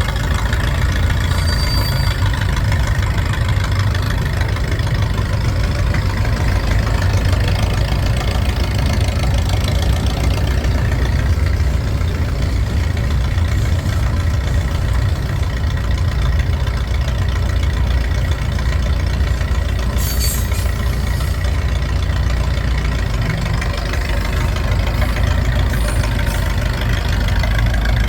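Massey-Ferguson 30 industrial tractor-loader-backhoe's engine running at a steady idle.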